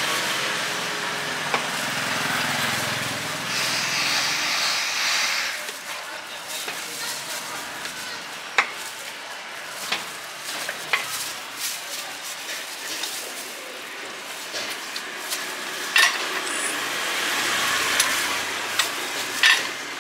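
A passing vehicle's engine hum dies away over the first few seconds. Then come scattered clicks and taps as peeled oranges are cut and the halves set down on steel trays, over a faint background hiss.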